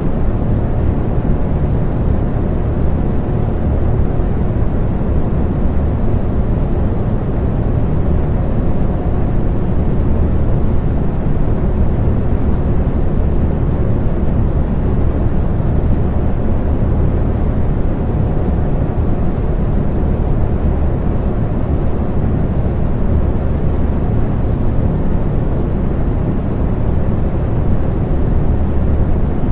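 Electric fan running steadily: a constant low rushing noise with a faint hum.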